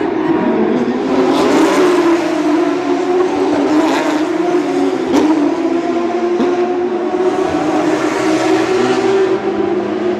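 Porsche 911 GT3 Cup race cars' flat-six engines at high revs, several cars passing one after another in a continuous loud stream, with a couple of sharp cracks in the middle.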